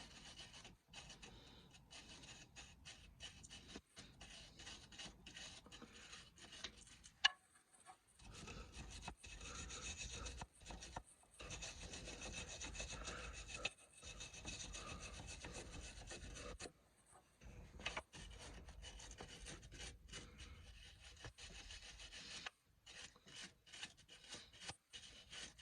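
Faint, uneven scraping and scrubbing on the rusty rear anti-roll bar drop link, in stretches broken by short pauses, with one sharp click about seven seconds in.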